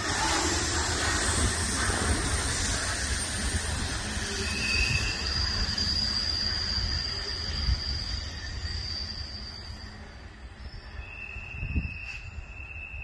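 Freight train cars rolling past with a steady rumble and thin, high wheel squeal. The rumble drops away about ten seconds in, and a fainter squeal carries on near the end.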